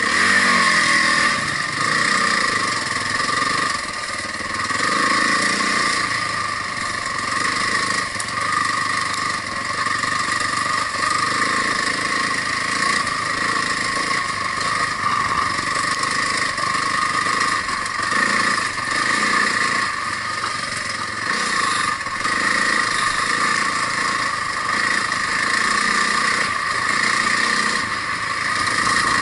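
Enduro motorcycle engine ridden off-road, its revs rising and falling throughout, with a climbing rev about a second in.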